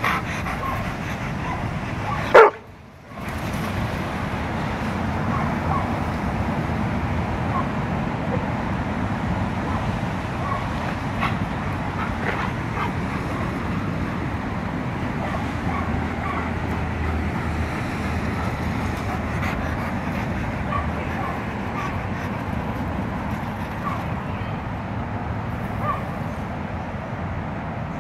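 Black Labrador retriever giving one loud cry that falls in pitch about two and a half seconds in, then short faint whines and yips, over a steady hum of road traffic.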